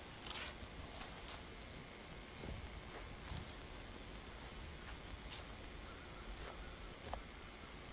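Crickets trilling steadily in one high continuous tone, with a few faint ticks and rustles.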